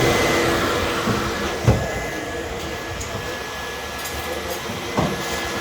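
A steady machine whir with a couple of short knocks, one about 1.7 s in and one near the end.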